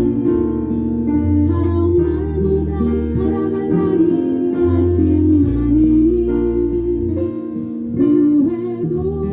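A band playing an instrumental passage of a slow song: plucked guitar over a bass line that moves to a new note every second or two, with a held melody line on top.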